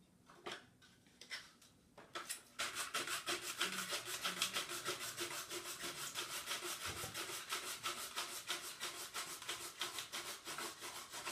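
An onion being grated on a hand grater: a few light knocks, then from about two seconds in a steady run of quick, even rasping strokes, several a second.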